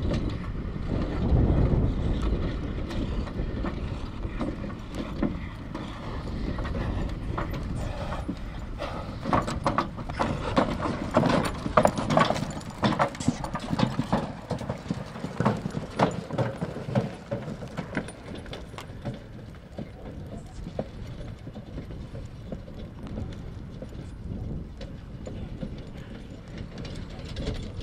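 Draft horse's hooves clip-clopping as it walks, along with knocking and rattling of its harness and the vehicle it pulls. A low rumble fills the first few seconds, and the clopping and rattling are thickest in the middle.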